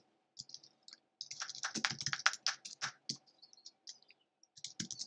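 Typing on a computer keyboard: a few keystrokes, then a quick run of them, then scattered taps and another short run near the end.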